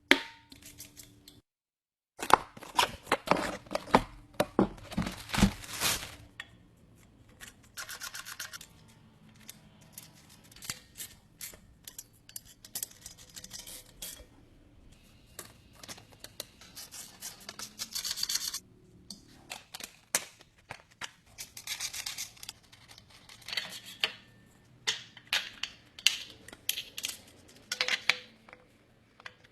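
Irregular clicks, clinks and scraping of hand work on metal parts, with runs of rapid ticking, broken by abrupt drops to silence.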